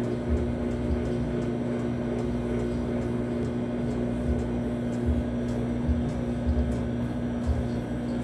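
Electrolux washing machine running: a steady motor hum with irregular low thuds.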